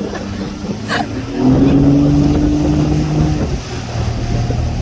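Motorboat engine running steadily, its note stepping up higher and louder about a second and a half in, over rushing wind and water.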